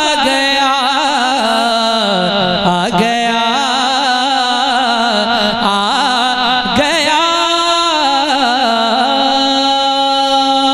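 A man singing an Urdu naat in a wavering, ornamented melodic line. About seven seconds in he settles into one long held note.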